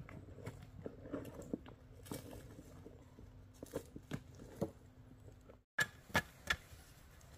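Earth being tamped around the foot of a newly set wooden post with a wooden pole: faint scattered knocks and scuffs, then three quick, sharp thuds near the end.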